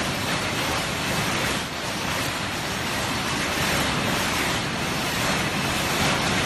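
Several paper cup forming machines running together, giving a steady, dense mechanical noise.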